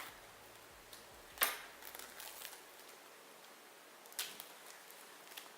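A letter opener slicing through the iPad box's packaging: two quick sharp cuts, the first about a second and a half in and the louder of the two, the second near the end, with a few faint ticks between.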